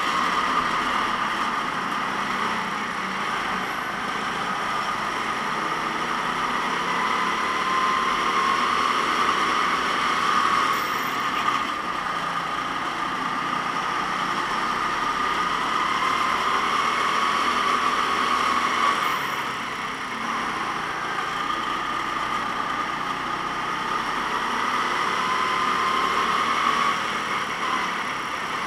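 Kart engine running at speed. Its pitch rises and eases off again, with a dip roughly every eight seconds.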